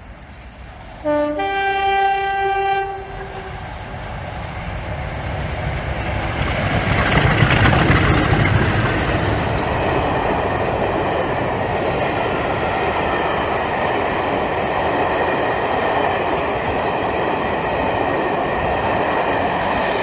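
Pair of English Electric Class 50 diesel locomotives sounding a two-tone horn about a second in, a brief low note then a longer high one, then passing at speed under power, loudest about halfway through with the rumble of their V16 diesel engines. The coaches follow with a steady rolling rumble and clickety-clack.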